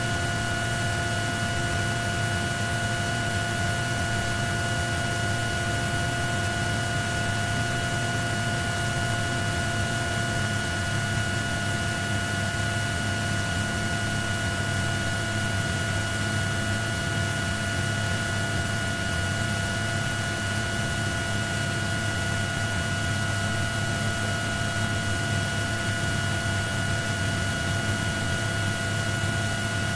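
Steady helicopter cabin noise: a constant low drone and hiss with several steady whining tones, unchanging throughout.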